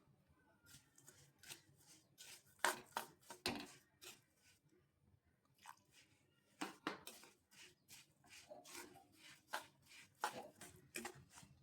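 Spoon or spatula stirring jaggery with a little water in a kadhai: faint, irregular knocks and scrapes against the pan.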